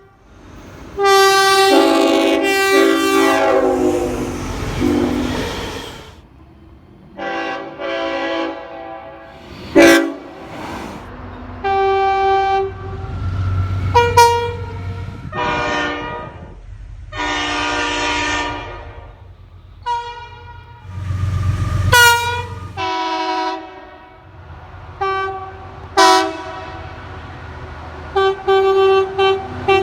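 Train horns sounding a string of blasts, some long and many short, each a chord of several notes held together, with brief gaps between them.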